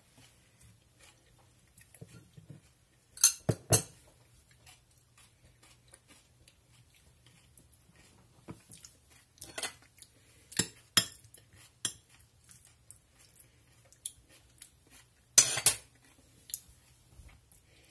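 Metal fork clinking and scraping against a small glass bowl, with bowls knocking on a countertop: scattered sharp clinks, the loudest about three seconds in and again near the end.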